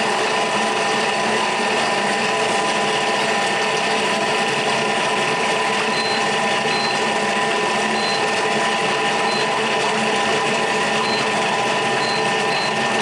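Thermomix food processor's motor running at a steady whine, mixing a buckwheat crêpe batter.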